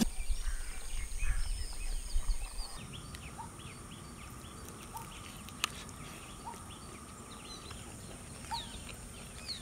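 Outdoor ambience of many birds chirping, short rising and falling calls scattered throughout over a steady high hiss. A low rumble runs through the first three seconds, and there is one sharp click about five and a half seconds in.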